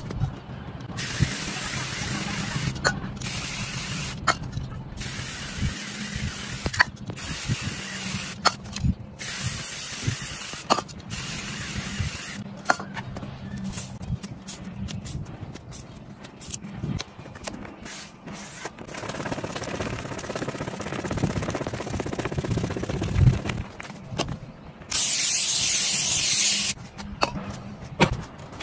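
Aerosol spray-paint cans hissing in repeated bursts of a second or two, with a longer, louder spray near the end, over a low steady hum.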